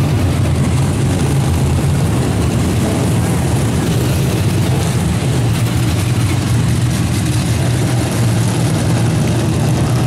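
Several dirt modified race cars' V8 engines running together at low speed as the cars roll slowly around the dirt oval: a loud, steady, deep engine drone with no sharp revving.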